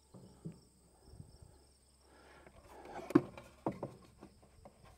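Plastic air filter cover on a standby generator engine being unclipped and lifted off: a few light clicks and rattles, the sharpest a little past halfway. Faint steady insect chirring underneath.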